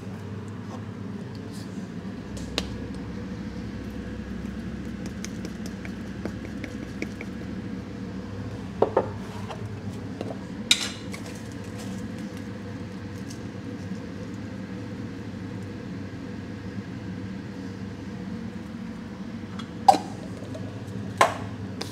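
Dishes and utensils clinking and knocking now and then during food preparation: a handful of short, sharp knocks, the loudest about 9, 11 and 20 seconds in, over a steady low hum.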